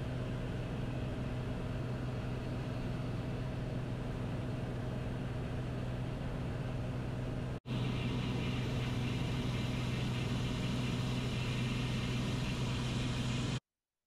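Steady drone of a Beechcraft A36 Bonanza's piston engine and propeller in flight, heard inside the cockpit, with a strong low hum. It drops out for an instant about halfway through and cuts off abruptly just before the end.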